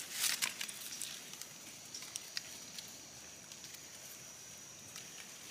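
Dry leaf litter rustling briefly as a hand picks a mushroom out of it, followed by a few faint crackles of leaves and a quiet forest background with a thin steady high tone.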